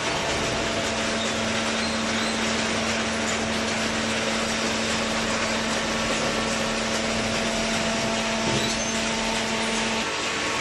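Cardboard shredding and baling machinery running: a steady motor hum over a dense mechanical noise. The hum drops out near the end while the noise goes on.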